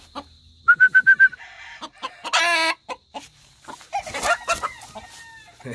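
Young gamecock clucking: a run of five quick, even clucks about a second in, then a short, loud squawk-like call a little after two seconds, and more calls around four seconds in.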